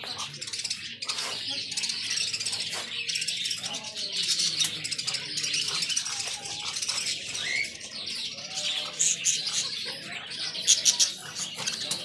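Many caged pet birds chirping and twittering at once in a dense, continuous high-pitched chatter, with a few louder sharp calls near the end.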